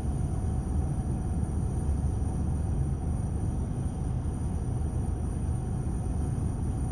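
Steady low rumble of vehicles idling in traffic stopped at a red light.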